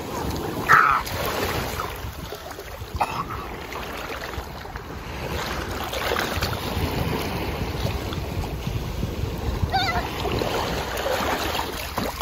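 Small ocean waves washing and breaking in shallow surf, with wind buffeting the microphone. A child's short high yelp stands out about a second in.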